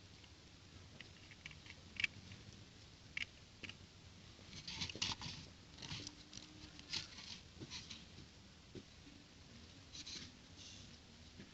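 Small plastic toy bricks handled and clicked together: scattered light clicks, then several short clusters of crackly ticking and rustling.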